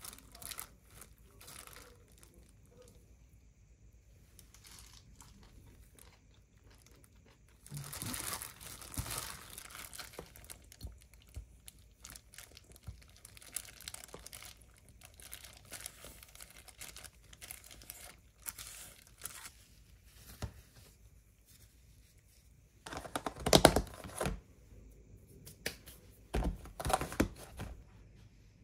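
A plastic food-prep glove crinkling and rustling as hands toss seasoned food in a stainless steel bowl and scrape it into a glass container, with a few loud clattering knocks near the end.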